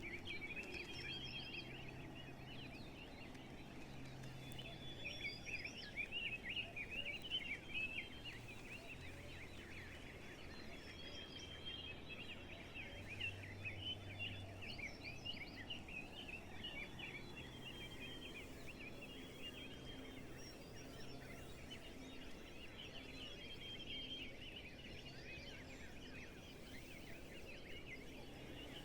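A chorus of many birds chirping and twittering at once, a dense unbroken chatter of short high calls.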